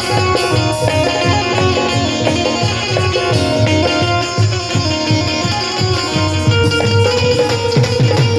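Instrumental break in a Hindi devotional bhajan: a plucked string instrument plays the melody over a steady drum beat.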